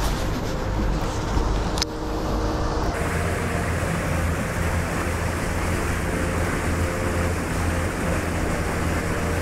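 Wind buffeting the microphone in a low, uneven rumble, over a faint steady hum, with a single sharp click about two seconds in.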